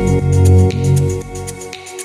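Background electronic music: held synth and bass notes with the drums dropped out, fading away near the end.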